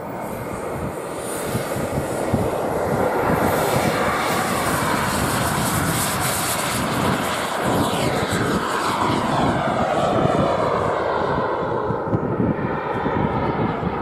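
Model jet's turbine engine at takeoff power: a loud whine and rush that builds over the first couple of seconds as the plane rolls and lifts off. Its pitch falls midway as the plane passes and climbs away.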